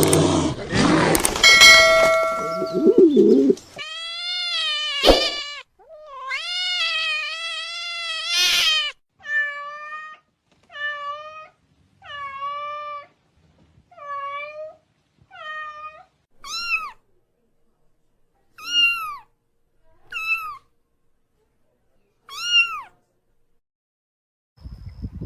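A cat meowing about a dozen times in a row. The first calls are longer and drawn out, the later ones short with a falling pitch. A burst of loud noise comes before the first meow.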